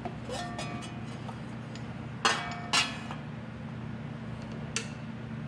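Metal clinks and knocks of a lathe cover and tools being handled as the cover comes off. Two louder knocks fall about halfway through and a smaller one near the end, over a steady low hum.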